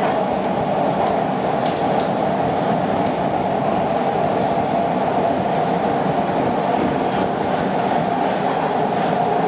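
TTC T1 subway car running through the tunnel: a steady, loud rumble of wheels on rail with a constant whine.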